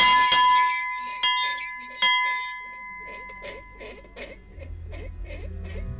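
A wall-mounted bell ringing: a few clapper strikes carrying one clear ringing tone, dying away within the first three seconds. Soft music with a low drone and light mallet notes comes in near the end.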